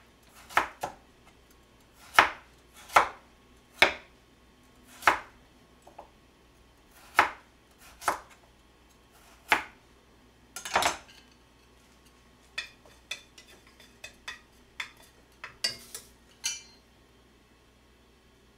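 Chef's knife slicing a carrot into half-moons on a plastic cutting board: single sharp knocks of the blade hitting the board, about one a second, then a run of lighter, quicker taps that stops a couple of seconds before the end.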